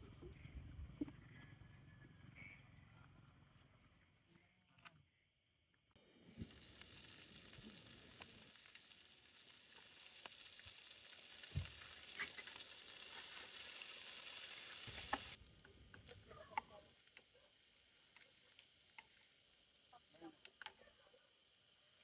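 Shrimp frying in oil in a nonstick pan: a steady sizzle, which drops to a quieter crackle with a few light clicks about fifteen seconds in. Crickets chirp at the start, before the sizzle begins.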